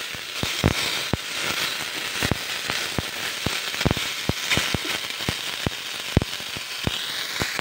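Canned pineapple slices sizzling in a stainless steel frying pan: irregular sharp pops and crackles over a steady hiss.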